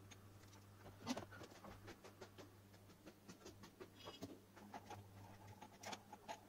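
Faint clicks, taps and light rustling as wires are handled against a hollow plastic torch housing, irregular throughout. The sharpest taps come about a second in and again near the end.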